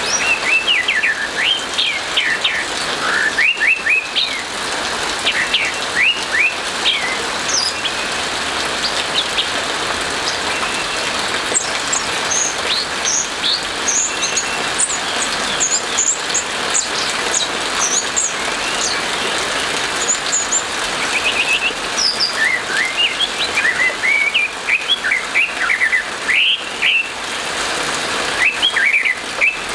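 Orange-headed thrush singing in full voice: quick runs of short, sharp whistled notes, many sweeping in pitch, broken by brief pauses. A steady hiss of rain runs beneath the song.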